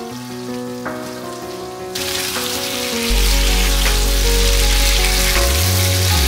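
Background music with sustained notes; about two seconds in, a dense sizzling hiss comes in as chicken and potato curry masala fries in oil while being stirred with a wooden spatula. A deep bass note in the music enters about three seconds in and is the loudest sound from then on.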